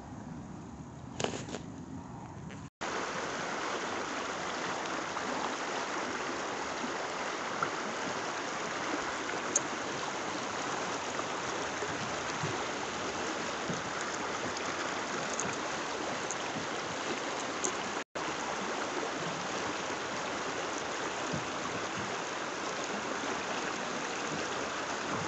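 River riffle water rushing steadily past a canoe in shallow rapids, a constant even rushing hiss. A brief click comes about a second in, and the rushing gets louder at about three seconds.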